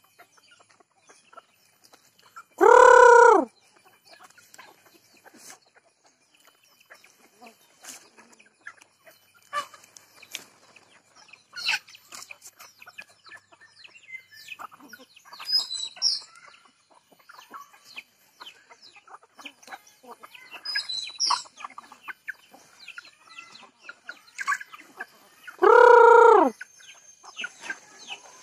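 A flock of chickens and junglefowl clucking and calling, with scattered high chirps. Two loud, short, crow-like calls, each under a second, stand out: one about three seconds in and one near the end.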